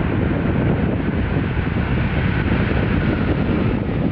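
Jet engines of a four-engine Boeing 747 freighter running during the landing roll, a steady deep rushing noise with a faint steady whine above it.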